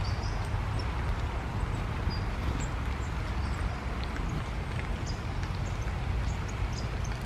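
Steady rain, a dense patter of drops with scattered sharp ticks close by, over a low rumble.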